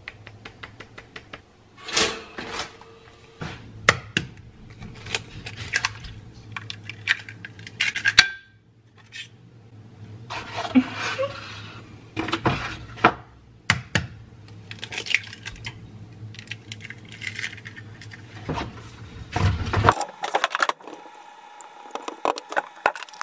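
Cooking eggs in a nonstick frying pan: a string of sharp clinks, taps and knocks from the pan and kitchen utensils, scattered irregularly, with a silicone spatula stirring the eggs in the pan.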